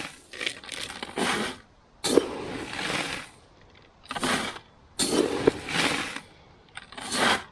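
Dry seed and grain particle bait being scooped from a plastic box and poured into a bin: repeated rushing pours and scrapes of loose grain, about one a second.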